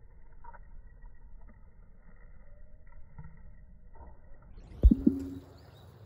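Low steady outdoor rumble, then a sharp thump near the end, the loudest sound here, followed by a brief low tone lasting about half a second.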